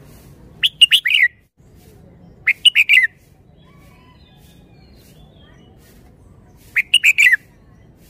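Red-whiskered bulbul singing three short song phrases, each a quick run of several bright notes: one about half a second in, one about two seconds later, and one near the end, with a few soft notes between.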